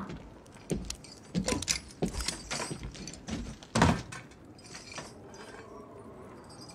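A run of light clicks and knocks, like small metal and wooden objects being handled. The loudest knock, with a dull thud, comes nearly four seconds in. After that it goes quieter.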